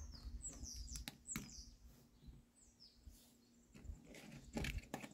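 Faint birdsong: several short, high, falling chirps in the first few seconds, with a few soft knocks, the last ones near the end.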